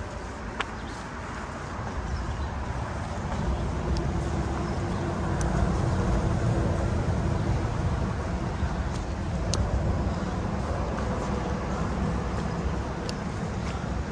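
Interstate 81 highway traffic: a steady rush of tyres and engines that swells for several seconds in the middle, with a faint held droning tone.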